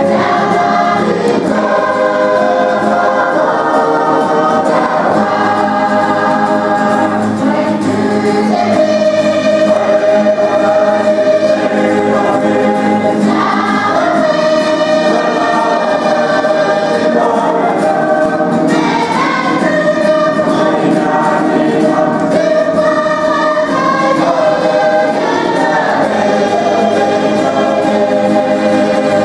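Mixed choir of women and men singing together in harmony, with guitar accompaniment. The voices hold long chords that change every few seconds, at a steady loudness throughout.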